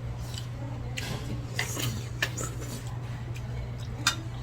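Eating utensils clinking lightly against dishes a few times, the sharpest clink about four seconds in, over a steady low hum.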